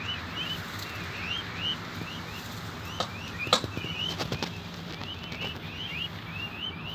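Peafowl chicks peeping over and over, short high chirps that each rise and dip, two or three a second. A few sharp taps about three to four and a half seconds in, the loudest about halfway through.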